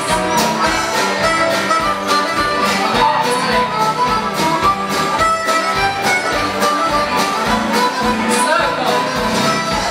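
Live folk dance band playing a contra dance tune, with melody instruments over a steady driving beat.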